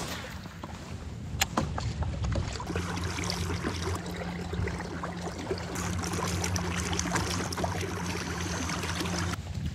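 A steady low motor hum starts about three seconds in and cuts off just before the end, over a rustling noise, with a couple of sharp knocks before it starts.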